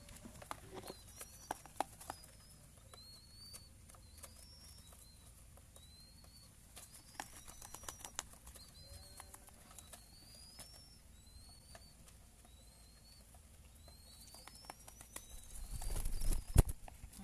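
Pet bird giving short, high, rising-and-falling chirps, about one or two a second, while being hand-fed, with small clicks between them. A louder rustle and knocks come near the end.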